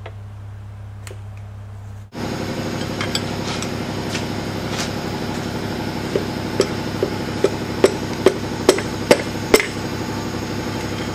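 Hammer tapping the pistons and rods out through the cylinder bores of a Chevy 350 block: a few scattered taps, then a run of about nine sharp strikes roughly two a second from about six seconds in. A steady mechanical hum runs underneath and gets louder about two seconds in.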